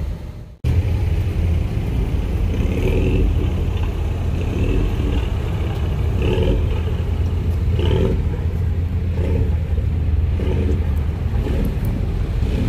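Mini Cooper S engine and exhaust running with a steady low rumble as the car rolls slowly by at low speed.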